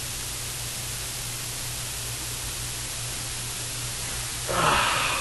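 A man yawning loudly: one drawn-out vocal exhale with falling pitch, starting about four and a half seconds in. Under it runs a steady hiss with a low hum.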